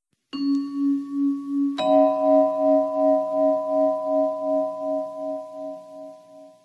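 Logo chime: two struck, bell-like metal tones, the second about a second and a half after the first, ringing on with a wavering pulse of about three beats a second and slowly fading out.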